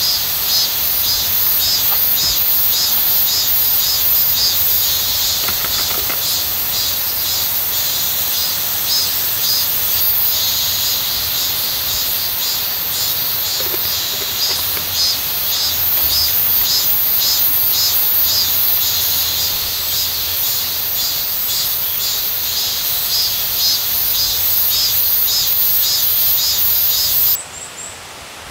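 Summer insect chorus: a dense, high-pitched pulsing buzz that continues steadily, then cuts off suddenly near the end.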